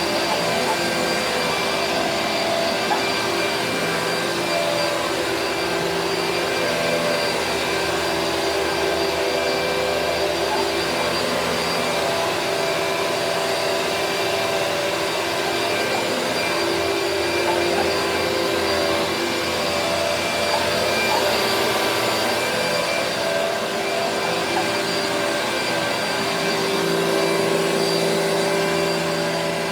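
Vacuum cleaner running steadily, its motor hum wavering slightly in pitch as the suction load changes.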